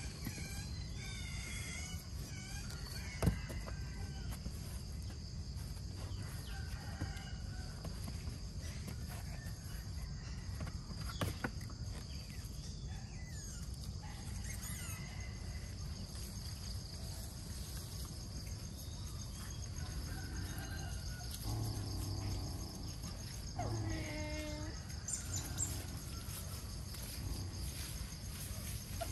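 Steady high-pitched insect chorus over a low background rumble, broken by a few short chirping calls and two sharp knocks.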